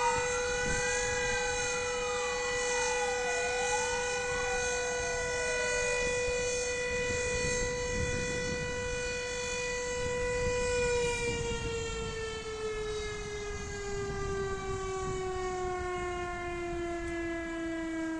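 A siren holds one steady tone while fire engine sirens wail up and down over it for the first few seconds. About eleven seconds in, the steady siren begins winding down, its pitch slowly falling.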